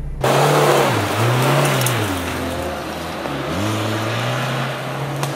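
A 4x4 SUV's engine revving as it drives uphill over a leaf-covered forest slope, its pitch dropping and climbing again twice as the throttle is eased and reapplied.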